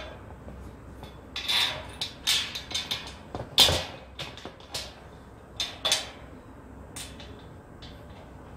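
Steel frame parts and bolts of an IKEA LERBERG shelf unit clinking and knocking as they are fitted together by hand. An irregular run of sharp metal clicks, loudest about three and a half seconds in.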